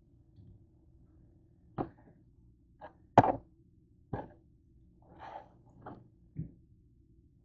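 Knife knocking on a cutting board while raw chicken is cut into pieces: about seven irregular short knocks and thuds, the loudest a little past three seconds in.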